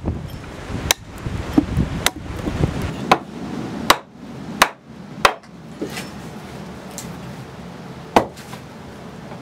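Small Robin Wood carving axe chopping birch wood: a run of sharp wooden chops about a second apart. The first three seconds have a duller rustle of chips between strikes; the later strikes are cleaner, sharper cracks as the axe splits a short log section on a chopping block.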